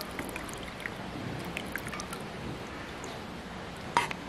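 Masala tea poured through a metal mesh tea strainer into a glass cup: a soft, steady trickle, with a light clink near the end.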